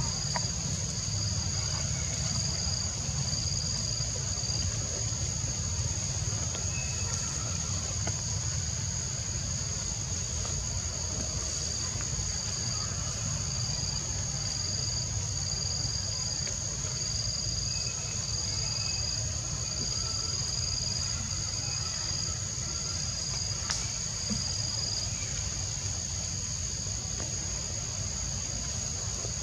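Insects shrilling steadily in the surrounding vegetation: one high, unbroken note, with a slightly lower note that comes and goes in short phrases. Under it runs a low, steady rumble.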